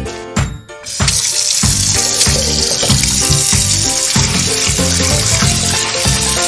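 Background music with a steady beat of about two strokes a second. From about a second in, a steady hiss joins it.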